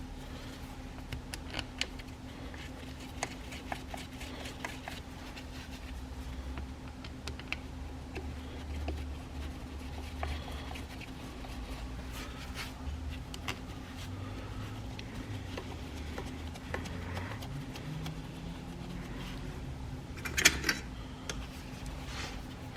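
Light metallic clicks and taps of bolts being fitted and tightened on a differential cover, with a sharper cluster of clicks about 20 seconds in, over a steady low hum.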